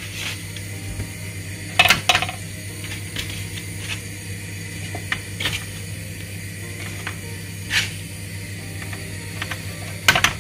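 Raw chicken wings being set down one by one in a roasting pan: a few sharp knocks and soft handling sounds, the loudest about two seconds in and near the end, over a steady low hum.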